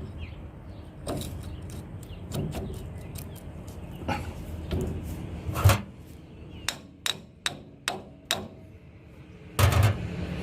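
Sharp metal knocks and taps as tractor axle parts are worked into place: scattered at first, one loudest strike about halfway through, then a quicker run of about six taps.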